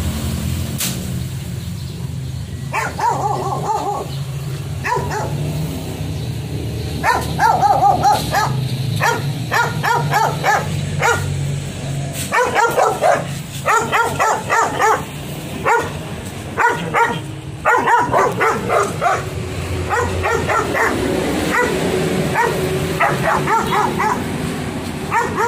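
Belgian Malinois barking repeatedly in quick runs of sharp barks, starting about three seconds in.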